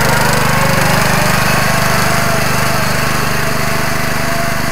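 Riding lawn mower's small engine running steadily at high throttle as the mower pulls through deep, slick mud in a high gear.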